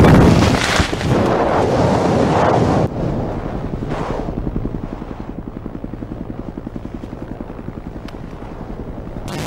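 Helicopter rotor chopping with a steady rhythmic pulse that slowly fades, after a loud rushing noise that cuts in suddenly and lasts about three seconds.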